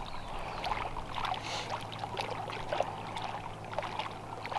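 Small ripples lapping and trickling at the edge of shallow water, with scattered light splashes and ticks. A faint steady low hum runs underneath.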